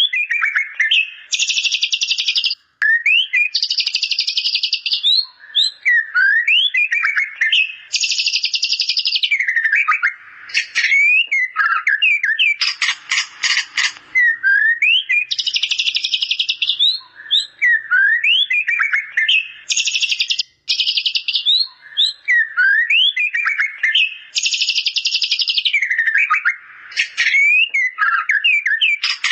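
White-rumped shama (murai batu) singing a song filled with mimicked bar-winged prinia (ciblek) calls: short swooping whistles alternating with rapid, buzzy high trills about a second long, repeating every few seconds.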